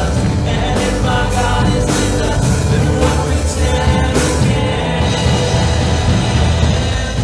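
Live church worship band playing a song, a woman singing lead into a microphone over strummed acoustic guitars and electric bass.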